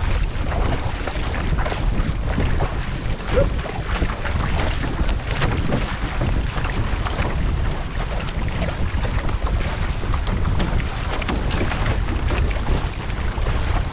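Water rushing and splashing along an outrigger canoe under steady paddling, with paddle blades striking the water. Wind buffets the microphone throughout, making a constant low rumble.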